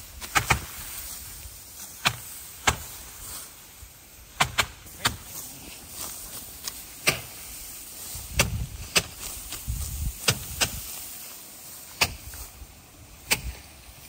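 Ripe rice stalks being cut by hand low in the clump, a string of sharp, crisp snaps at irregular intervals, roughly one a second, over a rustle of stalks.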